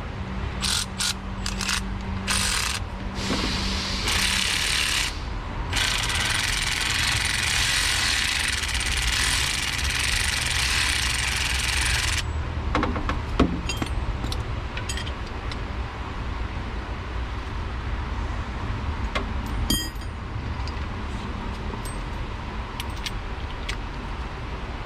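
Hand-tool work on the engine's spark plugs: a loud hiss comes in broken spurts for about the first twelve seconds, then scattered clicks and rattles of a ratchet and socket, over a steady low hum.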